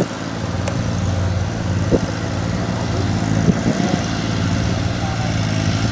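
Steady engine drone from a small tracked rice-hauling tractor loaded with rice sacks driving across the paddy, with a combine harvester running close by.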